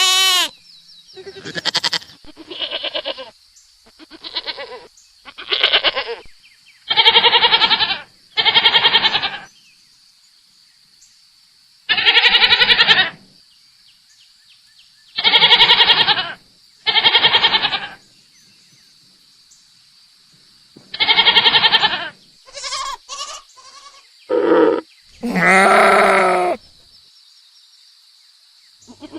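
Domestic goat bleating over and over: about a dozen separate calls, short and long, with a wavering, quavering pitch and irregular pauses between them.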